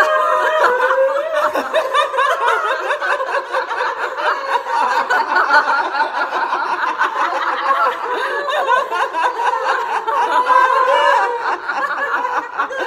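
A group of women laughing together without a break, many voices overlapping: the deliberate, sustained group laughter of a laughter yoga exercise.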